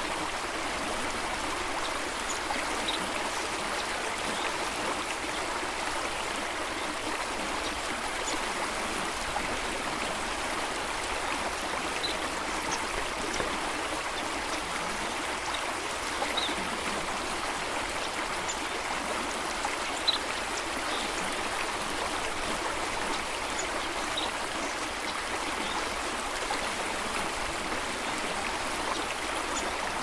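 Flowing water rushing steadily over rocks, with a few brief high blips now and then.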